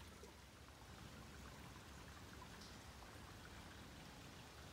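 Faint, steady trickle of a waterfall running so low it is barely more than a trickle: a thin stream of water splashing down over rocks.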